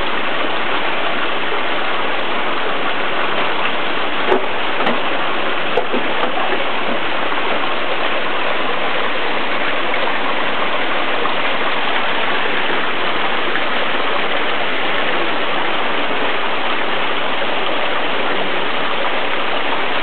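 Steady rush of fast-flowing water from a mountain stream, even and unbroken, with a few brief clicks about four to six seconds in.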